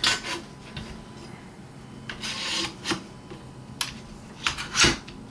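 Light metal clinks and knocks as the aluminum battle rail is handled and fitted against the shotgun, with a short scraping rub a little past two seconds in and the sharpest knock near the end.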